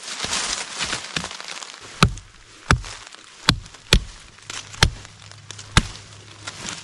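Swedish-made axe chopping through the base of a wet green sapling: six sharp strikes about a second apart, after a couple of seconds of rustling leaves and brush.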